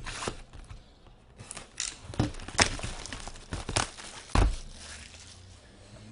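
Plastic shrink-wrap being torn and crinkled off a cardboard trading-card hobby box, a run of sharp crackles. A heavier knock comes about two-thirds of the way through, as the box is set down on the table.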